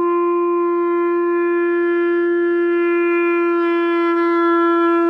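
Clarinet holding one long, steady note while the player swings the instrument from tucked in close to the body out to a wide angle, testing which angle gives the best tone. The pitch stays the same, but the tone changes as the clarinet moves out, with the upper overtones weakening from about halfway through.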